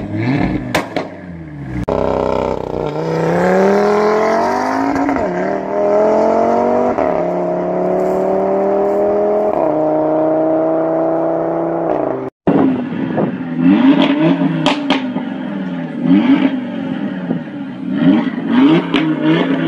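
Audi RS3's turbocharged five-cylinder engine revved repeatedly in short blips, then run through a hard acceleration with its pitch climbing in steps and dropping at each upshift. After a brief break come more quick revs, with sharp cracks between them.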